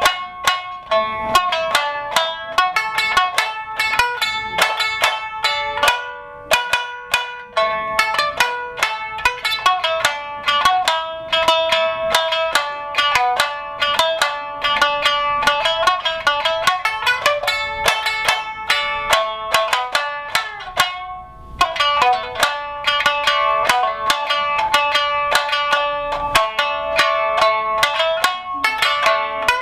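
Amami shamisen (Amami sanshin) played solo: a fast, running melody of plucked notes, each ringing briefly, with a short pause about two-thirds of the way through.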